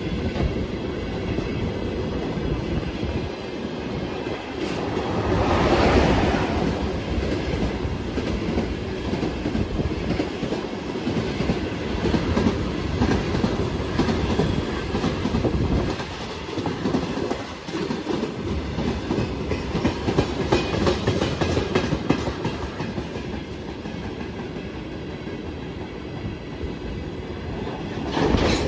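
Freight train of tank cars rolling past close by: a steady rumble with wheels clacking over the rail joints. It swells louder about six seconds in.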